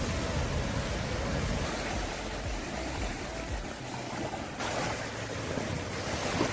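Sea surf washing onto a beach: a steady rushing noise that swells twice in the second half.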